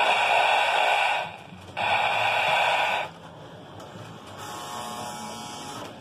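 Lionel MPC-era Sounds of Steam tender's electronic steam sound: a loud, buzzy hiss in two long bursts, then a much quieter steady hiss.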